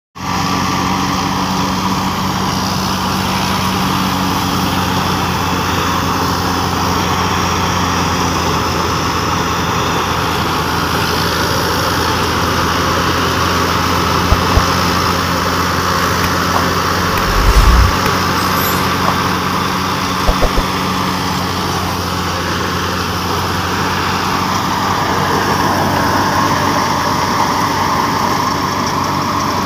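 Tractor-powered wheat thresher running: the tractor engine turns the thresher's drum and fan through the PTO shaft, giving a steady mechanical drone under a loud rushing noise of crop going through. A few low thumps come around the middle.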